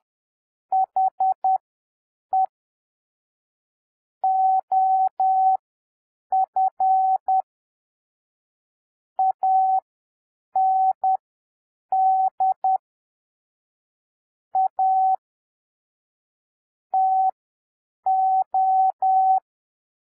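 Morse code practice tone: a single steady mid-pitched beep keyed in dots and dashes, spelling out 'the', 'of', 'and', 'a' and 'to'. The characters are sent at 10 words per minute with long pauses between words, spacing them out to an overall 7 words per minute.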